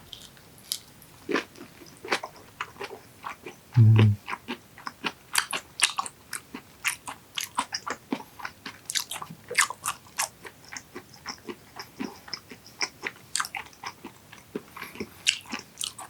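Close-up chewing of raw yellowtail sashimi: wet, smacking mouth clicks, several a second, throughout. About four seconds in there is a short low hum.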